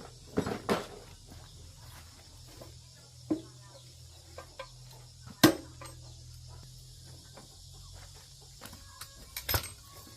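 Scattered knocks and clinks of hand tools on the metal parts of an industrial crusher being worked on, with one sharp, loud knock about five and a half seconds in, over a faint steady background hum.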